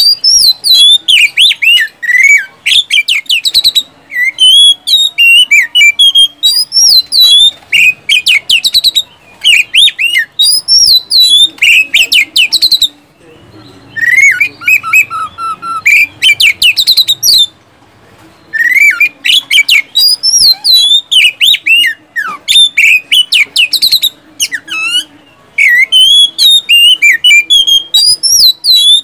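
Oriental magpie-robin (kacer) singing in full song: fast runs of loud, sharp whistles and rapid-fire notes, broken by two short pauses, around halfway through and again a few seconds later.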